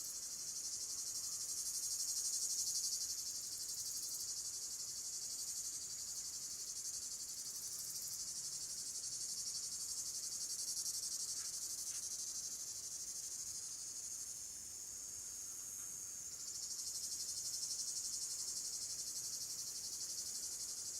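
Steady, high-pitched chorus of chirping insects, crickets or similar, used as a nature sound effect.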